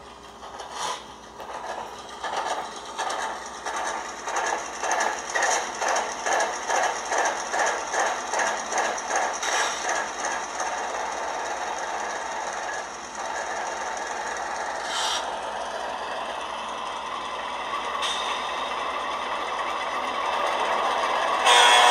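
Sound decoder of an HO-scale ScaleTrains CSX GE Tier 4 GEVO model, loaded with a GE Evolution-series Tier 1 diesel sound file, playing its locomotive sounds through the model's small speaker. For about the first ten seconds it pulses rhythmically, about two pulses a second. Then it settles into a steady running sound that builds over the last few seconds, and a sudden louder sound cuts in just before the end.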